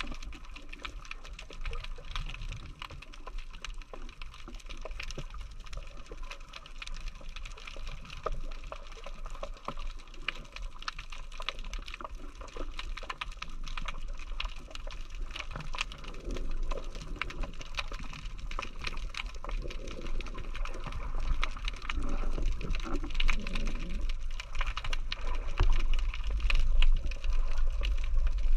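Underwater ambience heard through a camera housing: a dense, steady crackle of tiny clicks over a low rumble of moving water, the rumble growing louder toward the end.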